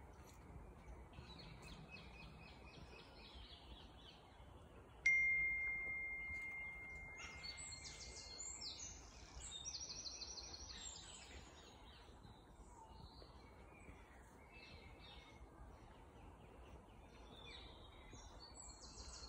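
Woodland birds singing and calling, with varied short phrases and trills. About five seconds in, a single sudden bell-like ring sounds and fades out over about three and a half seconds.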